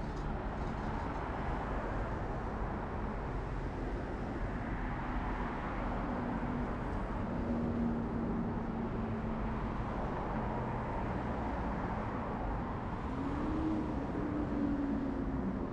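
Traffic on a busy multi-lane city road: a steady rush of tyres and engines from passing vehicles. In the second half one vehicle's engine hum stands out, rising and falling in pitch as it passes.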